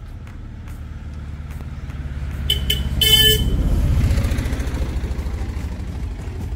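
A motor vehicle passing close, its engine rumble swelling to a peak about four seconds in and then fading away. A horn gives two quick toots and then a longer blast around three seconds in.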